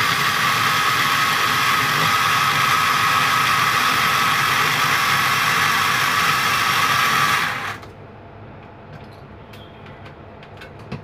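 Small electric food chopper blending banana with Yakult: its motor runs with a steady, high whirring whine, then cuts off suddenly about eight seconds in. A few faint clicks follow.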